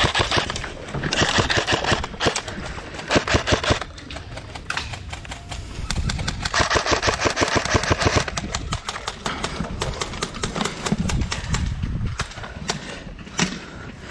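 Airsoft guns firing in rapid full-auto bursts of a second or two each, with gaps between and scattered single shots later on.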